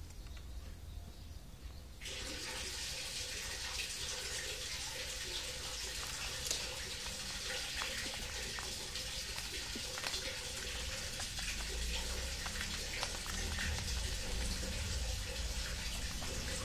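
A steady hiss, like running water, starts abruptly about two seconds in and holds on, with faint scattered ticks over it.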